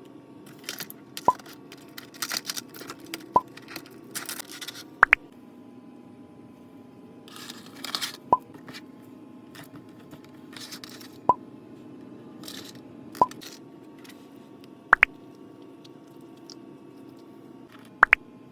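Slime being pressed and handled, giving sharp wet pops about every two to three seconds, with crackly rustling in the first few seconds and again around the middle.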